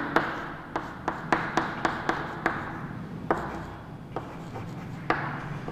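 Chalk writing on a blackboard: irregular sharp taps as the chalk strikes the board, with a faint scratchy hiss of strokes between them.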